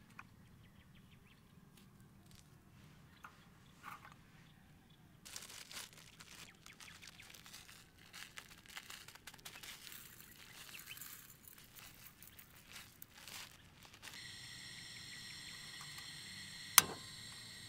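Granulated sugar poured from a plastic bag, pattering and rustling onto cut strawberries for several seconds, after a few faint knife clicks as the strawberries are sliced. Near the end a gas canister camping stove burner hisses steadily, with one sharp click.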